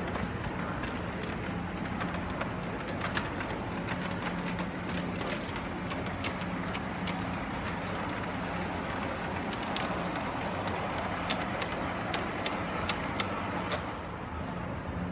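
LGB garden-railway model locomotive running on its track: a steady low motor hum with irregular light metallic clicks from the wheels on the rails.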